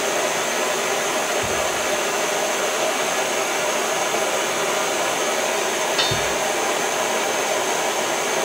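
Steady rushing hiss with the light sounds of pliers working a heated steel gun spring: a dull knock early on and a sharp metallic click about six seconds in.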